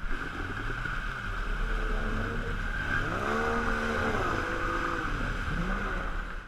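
Outboard motor running on a fast river. Its revs rise about three seconds in and then fall away again, over a steady rush of water.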